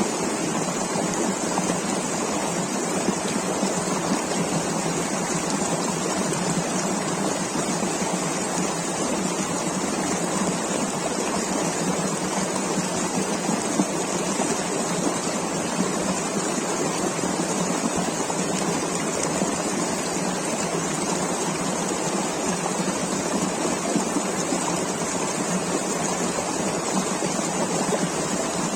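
River water rushing over rocks: a steady, even rush with no change through the whole stretch.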